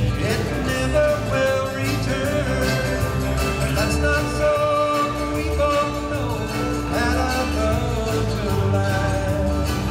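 Live country band music: a melody of long held notes that slide up and down, over a steady bass beat.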